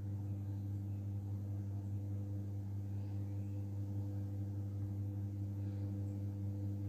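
A steady low hum with a few fainter higher tones above it, over a faint background hiss.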